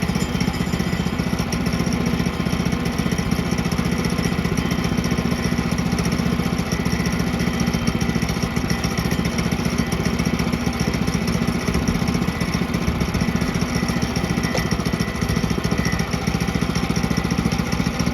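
Woodland Mills HM122 portable bandsaw mill's gasoline engine running steadily at a constant pitch while the band blade cuts through a southern yellow pine log to square it.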